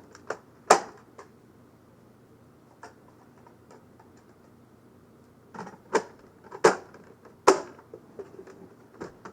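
Sharp plastic clacks and knocks from Nerf blasters being primed and fired: a loud one about a second in, then a group of three about two-thirds of the way through, with fainter clicks between.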